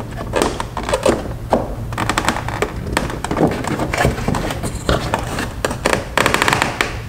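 Hands handling plastic trim at a car's front bumper while fitting a reflector: irregular light taps, clicks and rubbing on plastic, with a quicker run of small clicks near the end.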